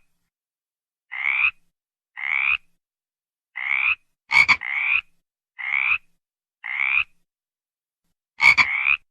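A frog calling in a series of short croaks, about seven in all and roughly one a second. Each croak rises in pitch, and two of them open with a sharper, louder note.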